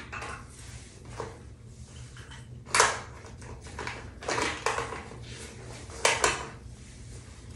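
Small makeup items clattering as they are rummaged through and set down on a bathroom counter: a sharp knock about three seconds in, a few more knocks around four to five seconds, and two quick clicks near six seconds.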